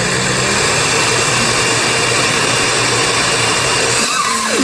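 Countertop blender running steadily on its grate setting, chopping a thick pesto mix of parsley, garlic, walnuts and olive oil. The mix is too thick for a blender, and it struggles where a food processor would cope.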